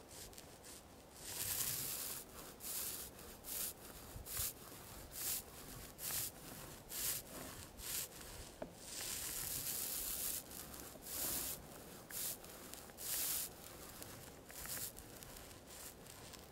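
Small paint roller rolling epoxy onto bare wooden roof planking: short rubbing, swishing strokes back and forth, about two a second, with a couple of longer strokes.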